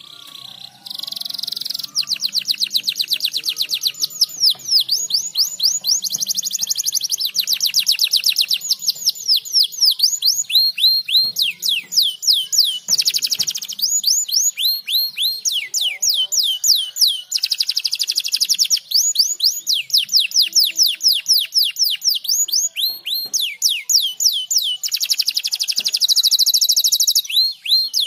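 Domestic canary singing a long, high-pitched song: rapid rolling trills of repeated notes alternating with runs of quick falling whistles. It is the kind of recorded song used as a lure to prompt other canaries to sing.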